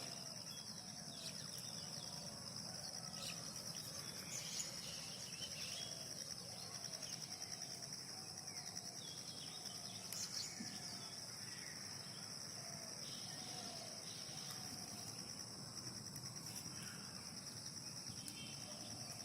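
Steady high-pitched insect chorus of crickets or cicadas, with a faint short falling call repeating over and over through the middle stretch.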